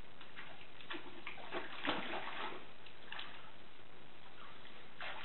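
Water splashing and sloshing in a shallow plastic kiddie pool as dogs paw at it and wade through it, in several short splashes from about a second in to three seconds in and once more near the end, over a steady background noise.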